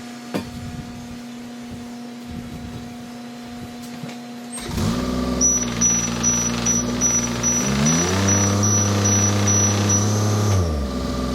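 Komatsu PC27 mini excavator's diesel engine running at raised throttle. About four and a half seconds in, the hydraulics take up load with a loud rush as the track is driven round, and the engine note sags, dropping further for a couple of seconds before it recovers near the end. Through the loaded stretch a high, even beeping sounds about three times a second.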